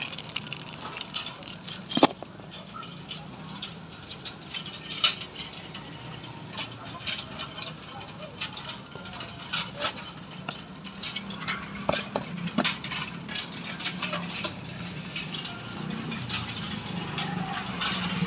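Irregular mechanical clicking and knocking over a low steady hum, with sharp knocks about two seconds and five seconds in.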